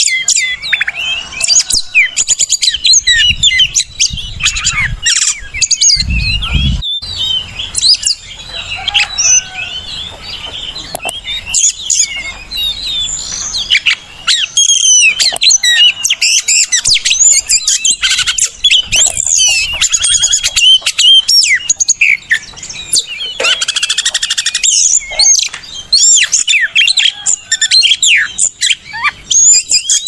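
Oriental magpie-robin (kacer) singing continuously: a fast, varied stream of sharp chirps and whistled notes. A brief low rumble comes in about six seconds in.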